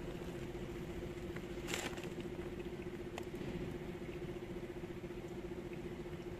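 Cat crunching dry kibble, heard as small scattered clicks over a steady hum, with a brief rustling burst about two seconds in.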